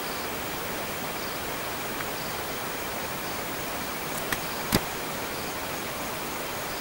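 Steady hiss of background noise, with two light clicks a little over halfway through from the handling of a plastic phone back cover.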